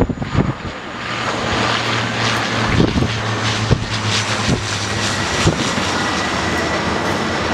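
Jet airliner passing with a steady engine rumble and a thin whine that comes in about five seconds in, while several distant firework shells burst as sharp bangs.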